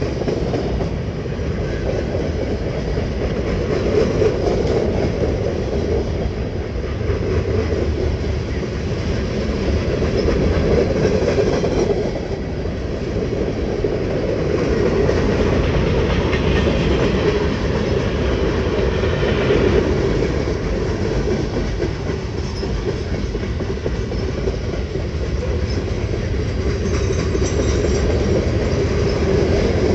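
Freight cars of a long train rolling steadily past at close range: the continuous rumble of steel wheels on the rails. For a few seconds around the middle the sound takes on a brighter, higher-pitched edge.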